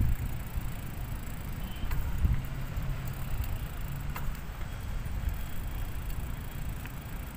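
Riding a bicycle: a steady low rumble of wind on the microphone and tyres on the road, with a few faint clicks and rattles.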